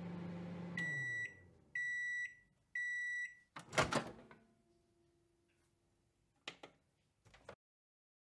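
Microwave oven finishing its cycle: its running hum winds down, then three high, evenly spaced beeps sound as the timer reaches zero. A loud clunk follows, and a few seconds later two short clicks.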